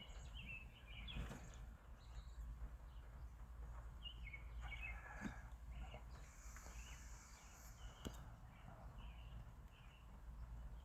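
Birds chirping in short, scattered calls over a low steady background rumble, with a couple of faint clicks.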